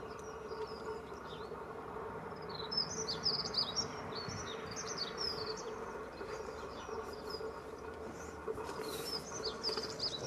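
Steady distant drone of a Royal Navy Merlin Mk.2 helicopter, with a small songbird chirping quick runs of high notes over it, in two spells: from about two and a half seconds in, and again near the end.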